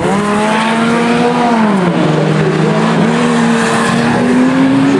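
Several banger racing cars' engines revving hard as they race round the oval. The pitch climbs, drops away about two seconds in, then rises again as a car passes close by.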